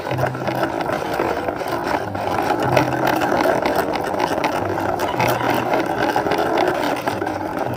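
Plastic toy tanker truck pushed by hand along concrete, its hard plastic wheels rolling with a steady rough, clicking rattle and a low hum.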